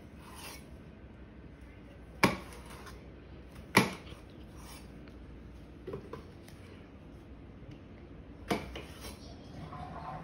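Apples being cut with a knife on a cutting board and the pieces dropped into a blender jar: three sharp knocks, about two, four and eight and a half seconds in, with a couple of fainter clicks between.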